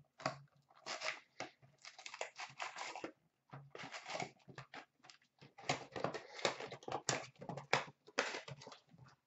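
Plastic shrink-wrap crinkling and the cardboard box of 2015-16 Upper Deck Champ's hockey card packs being opened and handled as the packs are pulled out. The sound is a run of irregular rustles and crackles with short pauses between them.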